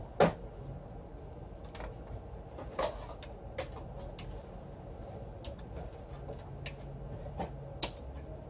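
A few separate sharp clicks and light knocks, the loudest just after the start, over a low steady hum.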